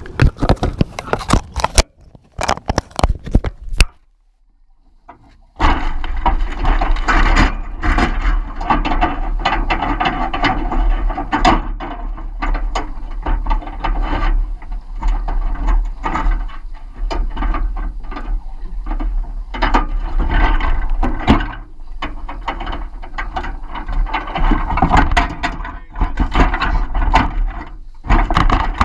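Sharp clicks and knocks as the GoPro's waterproof housing is handled and set down in a wire crab pot. After a short quiet gap, a steady muffled mechanical rattling with a low rumble and many small clicks, heard through the camera housing.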